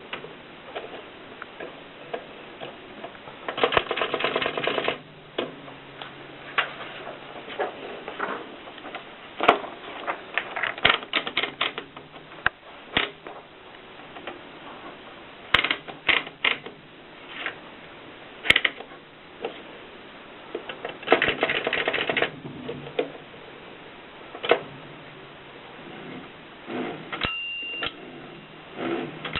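AEG Mignon 3 index typewriter in use: scattered single mechanical clicks and clacks, with two bursts of fast rattling clicks, one about four seconds in and one about twenty-one seconds in, each lasting a second or so. A short, high, steady ring sounds near the end.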